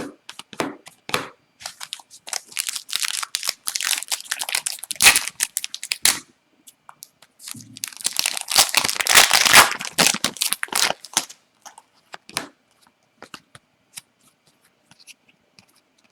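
A hockey card pack's wrapper being torn open and crinkled, in two long rustling stretches, followed by a few light ticks near the end.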